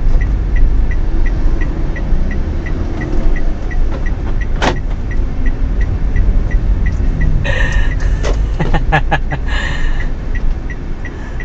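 Inside a moving car's cabin: low engine and road rumble, with the turn-signal indicator ticking steadily about three times a second as the car turns in. A cluster of short sharp clicks and bursts sounds about eight to ten seconds in.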